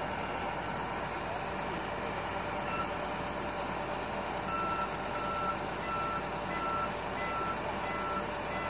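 A heavy machine's engine running steadily under a vehicle backup alarm, which starts beeping about halfway in and then repeats short beeps a little under two a second.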